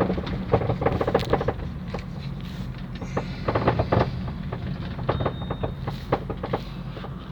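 Loud, irregular knocking and clunking from the front suspension of a 2010 Chevrolet Astra driven over small bumps, over a steady low road and engine rumble. The knocking comes from worn, loose stabilizer links and play in the upper strut mounts.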